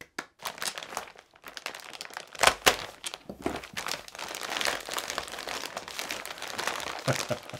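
A couple of hand claps, then a plastic mailer bag being crumpled and torn open by hand: a dense, irregular crinkling with one louder stroke about two and a half seconds in.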